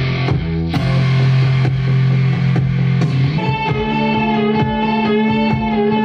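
A work-in-progress instrumental arrangement with electric guitar. A low note is held for about three seconds, then a higher sustained note takes over above a steady pulsing rhythm.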